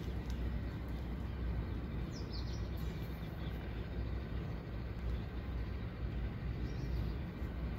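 Steady low outdoor background rumble, with a couple of faint high chirps about two seconds in.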